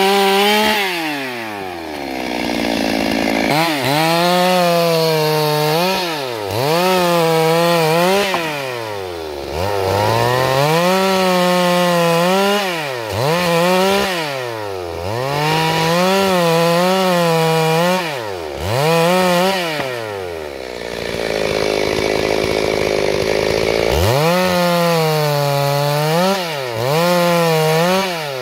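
Stihl MS 382 two-stroke chainsaw ripping a log into boards, running at full throttle in the cut. About every two to three seconds it drops toward idle and revs back up, staying low for a few seconds near the start and again about two-thirds of the way in.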